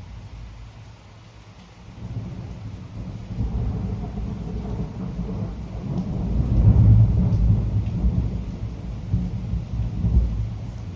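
Rolling thunder over steady rainfall: a deep rumble builds about two seconds in, is loudest just past the middle, then eases off.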